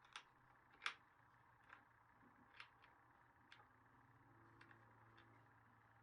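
Near silence broken by about eight faint, sharp clicks and taps at uneven intervals, the loudest about a second in.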